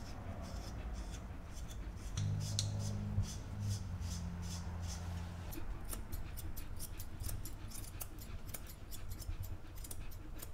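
Grooming scissors snipping through a Samoyed's thick white fur in quick repeated cuts, coming faster and closer together in the second half. A low steady hum sounds for a few seconds near the start.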